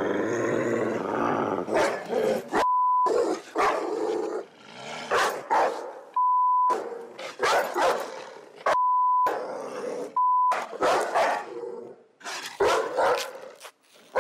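A West Highland white terrier barking and grumbling in a run of irregular bursts. Four short, steady bleeps cut in between them, blanking out the barks like a censor bleep.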